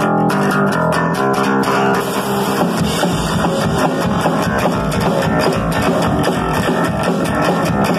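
Live rock band starting a song: electric guitar playing, with the drum kit's kick and full beat coming in about three seconds in.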